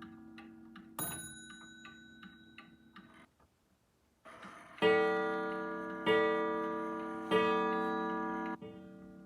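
Seth Thomas Adamantine mantel clock with an 89 movement ticking, with a lighter single strike about a second in, then its gong striking the hour: three loud strokes about a second and a quarter apart, each ringing on and fading.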